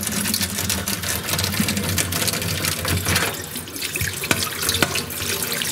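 Tap water running into a stainless steel sink, splashing over a smartphone held under the stream to rinse it, with a few light clicks in the second half.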